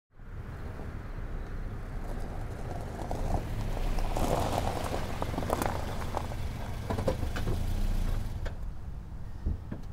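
A car engine running, a steady low rumble, with irregular rustling and clicks through the middle that fall away near the end.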